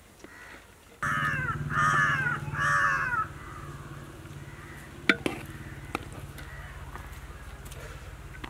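A crow caws three times in quick succession over a steady low hum. A little after halfway there are a couple of sharp knocks from a metal ladle striking the aluminium cooking pot as rice is mixed in.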